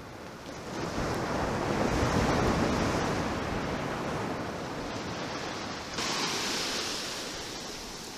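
Ocean surf breaking and washing up a sandy beach, swelling louder about a second in and then easing off. The sound changes abruptly near six seconds.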